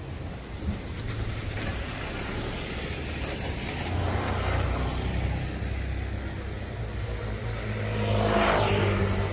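Cars driving past close by on a wet street: a low engine hum with tyre hiss, swelling about four seconds in and again, louder, near the end.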